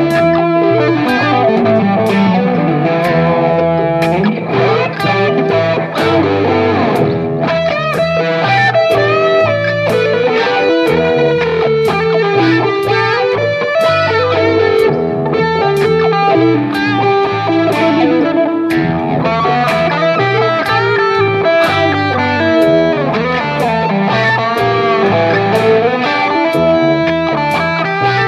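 Instrumental rock music: a distorted electric guitar plays a lead line with pitch bends and slides, over a bass line and a steady drum beat.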